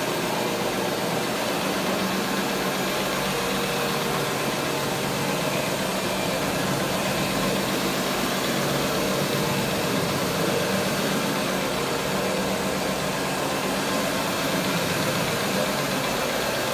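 Counter-rotating brush (CRB) carpet agitating machine running steadily, its motor humming as the brushes scrub pre-treated carpet.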